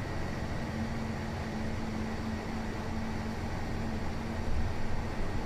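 Interior of a moving city bus: steady engine and road rumble with a low, even hum.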